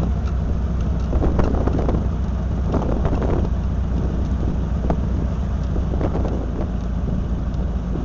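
Open-sided shuttle cart driving along: a steady low hum and rumble from its drivetrain, mixed with wind and road noise.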